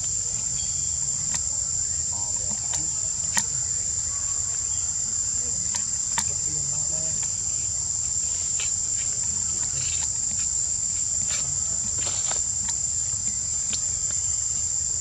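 Steady high-pitched drone of forest insects, unbroken throughout, over a low rumble. A few sharp clicks cut through it, the loudest about three and six seconds in.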